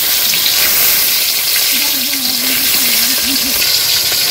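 Fish frying in hot oil in a pan, a loud, steady sizzle.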